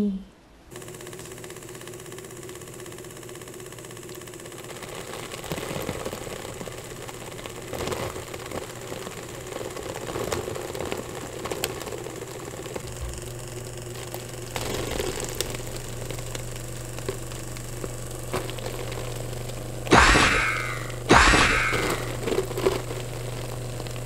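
Electric fan motor running, spinning a small perforated bottle cap that flings liquid sugar syrup against the cardboard walls instead of spinning floss, with scattered light clicks and spatters. A steadier low hum sets in about halfway, and two loud, short sounds falling in pitch come about a second apart near the end.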